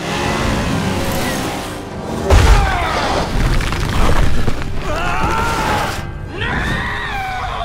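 Animated rockslide sound effects, with rumbling and heavy booms as the cliff gives way, the loudest thump about two and a half seconds in. Dramatic music runs over it, and there are three drawn-out rising and falling cries.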